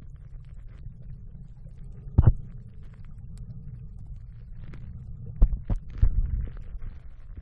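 Muffled low rumble of a phone microphone recording underwater, broken by dull thumps, one about two seconds in and several more around five and a half to six and a half seconds.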